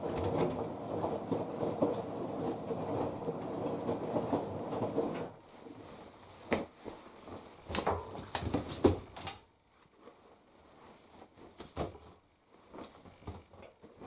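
Laundry being handled and loaded into the drum of a condenser tumble dryer: continuous rustling and rumbling for about five seconds, which stops abruptly, then a few separate knocks and clicks of handling.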